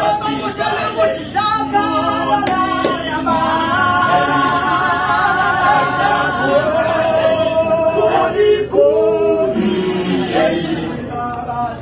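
Male a cappella choir singing in harmony, with held notes and no instruments.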